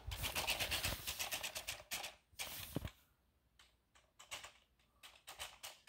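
WowWee CHiP robot dog moving on its wheeled feet over tile, its motors and wheels giving a fast run of clicks for about two seconds, then a brief falling tone and scattered clicks.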